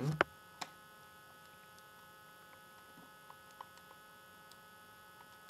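Steady electrical hum from the recording setup, several thin steady tones layered together. A sharp click comes just after the start, and a few faint ticks follow.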